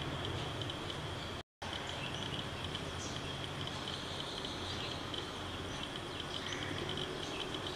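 Steady high insect chirring that pulses finely, with a few faint bird chirps above it. The sound cuts out completely for a moment about a second and a half in.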